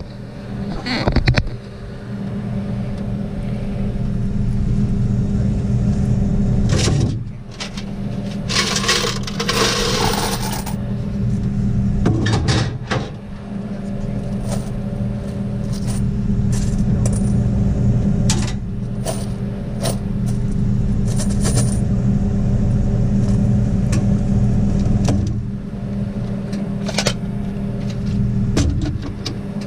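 A steady low motor hum, with scattered clicks and metallic clinks and a burst of hissing noise about nine seconds in.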